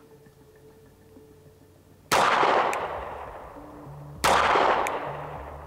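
Two pistol shots from a SIG Sauer P365 X-Macro Comp, about two seconds apart, each trailing off in a long echo. They are slow, aimed shots fired while sighting the pistol in.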